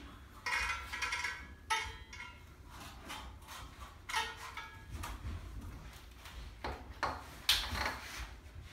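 Portable aluminium sheet-metal brake bending a strip of aluminium trim coil to 90 degrees: a handful of scattered metallic clunks and creaks from the handle and bending leaf, two of them ringing briefly.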